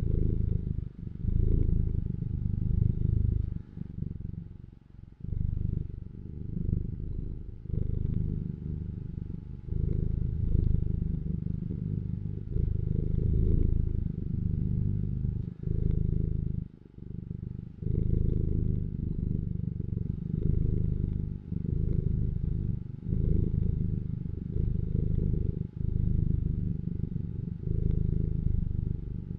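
Domestic cat purring close up: a steady low rumble that dips briefly every second or two.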